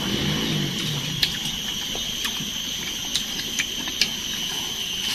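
Crisp fruit being handled and bitten while eating rujak: a few scattered sharp crunches and clicks, over a steady high-pitched drone.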